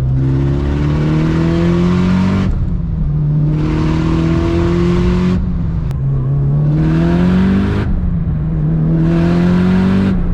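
Tuned Mitsubishi Evo 8's turbocharged four-cylinder accelerating hard in four pulls, its pitch rising through each and dropping between them as the throttle is lifted. A loud rushing hiss rides on top of each pull and cuts off sharply each time the throttle closes, heard with the windows down.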